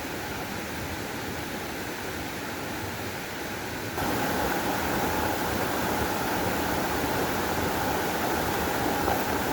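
Steady rushing noise of water, which suddenly gets louder about four seconds in.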